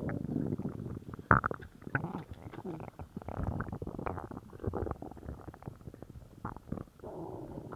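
Human stomach and bowel growling after a laxative: irregular gurgling rumbles and bubbling pops, with a sharper, louder pop just over a second in.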